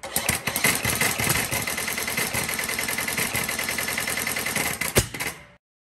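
Camless single-cylinder four-stroke engine with pneumatically actuated valves being turned over: a fast, dense clatter with a steady high whine through it. About five seconds in there is one sharp bang, a backfire from an engine whose valve timing is not letting it complete combustion. The sound cuts off abruptly.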